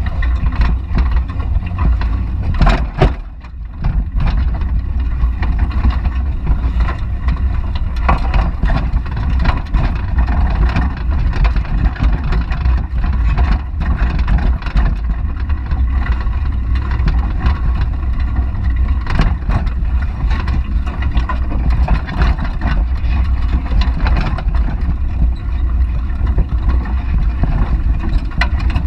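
Wind rumbling on the microphone of a GoPro mounted on a moving bicycle, with frequent short clicks and rattles. The rumble drops away briefly about three seconds in.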